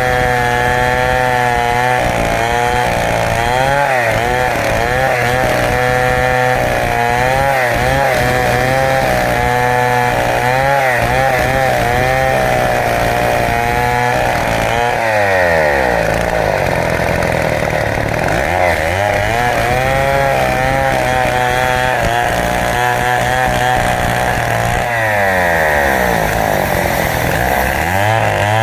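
Stihl two-stroke chainsaw running at high revs while ripping a large teak log lengthwise, its engine note wavering under the load of the cut. About halfway through, and again near the end, the pitch drops sharply and then climbs back up.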